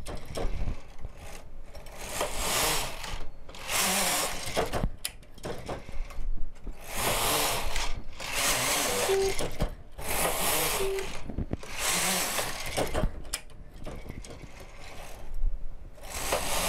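Carriage of a single-bed domestic knitting machine pushed back and forth across the needle bed, knitting several rows with a rattling swish on each pass.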